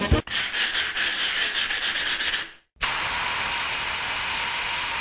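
Hairbrush strokes through hair, a run of scratchy brushing that stops about two and a half seconds in. After a brief silence comes the steady hiss of a hairspray can spraying.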